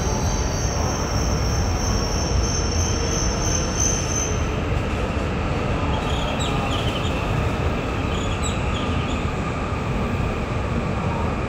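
Hayabusa Shinkansen train pulling into the station: steady running rumble and rushing noise as it slows. A high steady whine fades out about four seconds in, and brief high squeals from the wheels or brakes come a few times later on.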